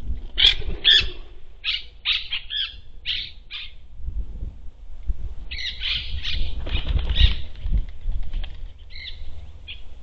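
Parakeets squawking: a string of short, harsh screeches in two bouts, with a few more near the end, as the flock flaps off the feeders. Low thumps and rumble lie underneath.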